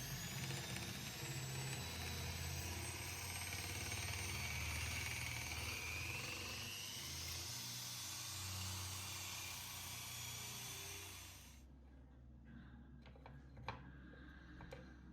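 An electric power tool running with a high whine over a dense grinding noise, cutting off suddenly about twelve seconds in, followed by a few light knocks.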